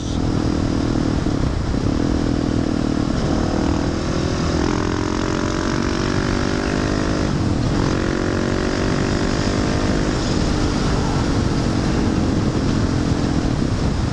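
Husqvarna 701 supermoto's single-cylinder engine running loud through a Wings aftermarket exhaust while riding. The revs climb, drop sharply about halfway through, then climb again, over wind rushing on the microphone.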